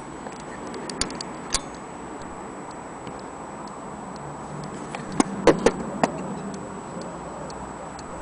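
Scattered sharp clicks and taps as a small vintage Metamic electric clock is handled and turned in the hands, with a quick cluster of them about five to six seconds in. The clicks come at uneven intervals, not the even beat of a running clock.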